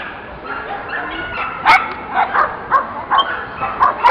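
A dog barking in a quick run of about seven barks, starting about a second and a half in, the first bark the loudest.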